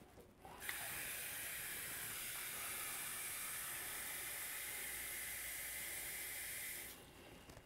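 Kitchen tap running water into a saucepan: a steady hiss that starts just over half a second in and cuts off about a second before the end.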